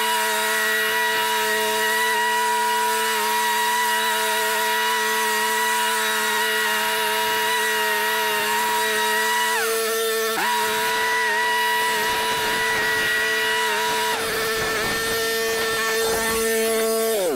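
Lawn mower engine running steadily at high revs. Its pitch dips briefly about ten seconds in and comes back up, then it winds down as it is shut off at the very end.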